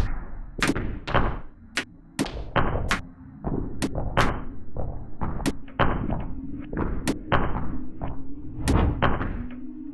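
High-heeled shoes tapping and stepping on a wooden floor, heard as irregular sharp knocks cut and arranged into an electroacoustic piece. A faint low steady tone comes in about three seconds in.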